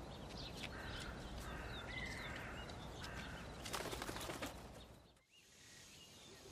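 Faint outdoor ambience with a few thin bird calls. About four seconds in comes a quick run of wingbeats as a crow flaps off a branch, then the sound drops away almost to nothing.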